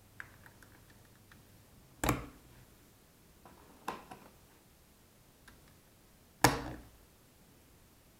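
Scattered light clicks and two louder knocks, about four seconds apart, like something being handled or set down.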